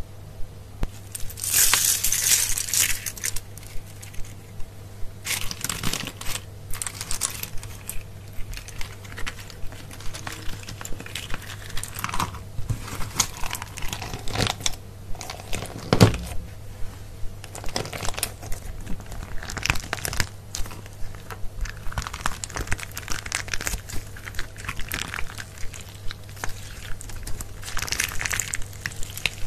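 Clear slime packed with mini wooden clothespins being squeezed and kneaded by hand, making a dense run of sticky clicks, pops and crinkles. There are louder crackling bursts near the start and near the end, over a faint steady low hum.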